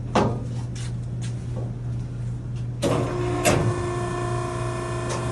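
Maren cardboard baler running with a steady low hum, with sharp metal clanks about a quarter-second in and twice around three seconds in, after which a steady whine of several tones sets in.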